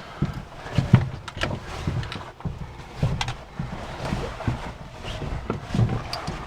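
Irregular footsteps, scuffs and knocks of someone moving about in a chalk tunnel, with low thumps and sharp clicks throughout.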